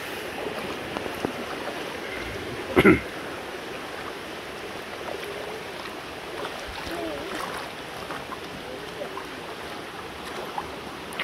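Shallow stream running steadily over its bed, with water stirred by wading and a hand net. A single short, loud sound stands out about three seconds in.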